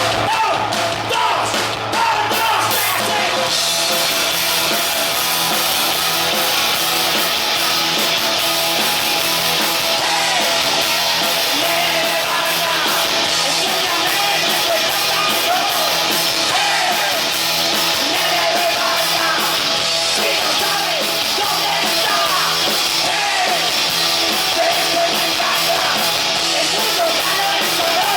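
Live punk rock band playing loudly: distorted electric guitars and drums with shouted vocals.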